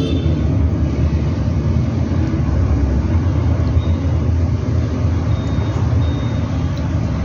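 A steady low rumble with no breaks, with a few faint, short high-pitched peeps around the middle.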